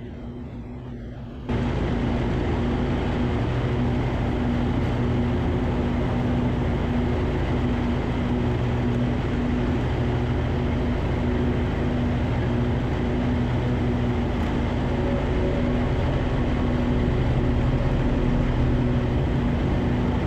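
Riding lawn tractor's gas engine running steadily under load while mowing, with a constant engine tone. It gets abruptly louder about a second and a half in.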